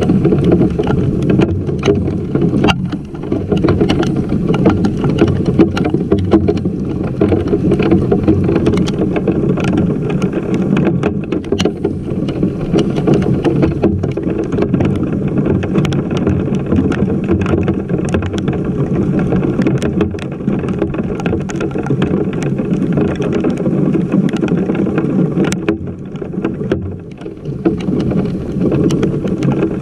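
Hailstorm: heavy rain and hail pelting down in a dense steady rush, with many sharp ticks of stones and drops striking close by. It eases briefly about three seconds in and again near the end.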